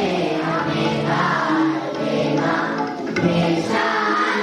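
A group of children singing together in chorus, holding sustained notes.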